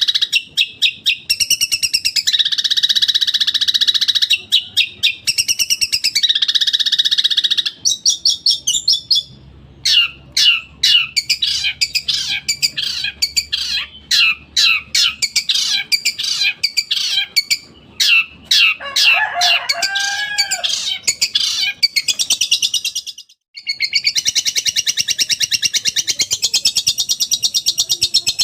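Long-tailed shrike (cendet) singing a loud, dense song of rapid-fire repeated harsh notes in quick volleys, the style bird keepers call 'tembakan'. There is a short break about 23 seconds in.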